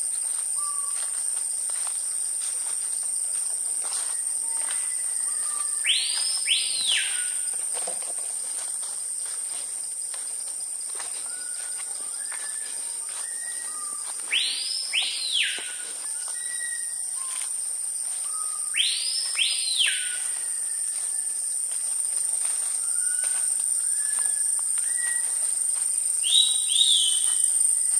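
Tropical forest ambience: a steady high-pitched insect drone with birds calling over it. A loud whistled call, a quick pair of notes sweeping up and back down, comes three times, with another high call near the end, over softer short whistles.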